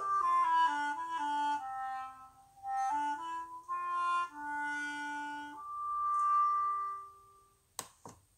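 A woodwind instrument playing a short solo melody of stepped notes, ending on a long held note that fades out about seven seconds in.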